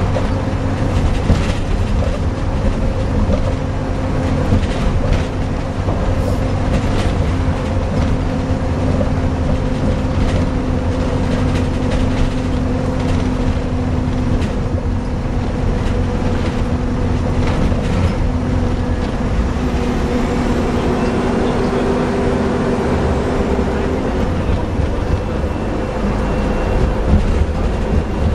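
Inside a small single-deck bus on the move: steady engine and road noise with a continuous drone that fades out a few seconds before the end.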